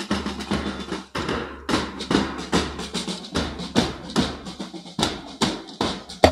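Snare and bass drums of a marching school band beating a quick, steady march rhythm.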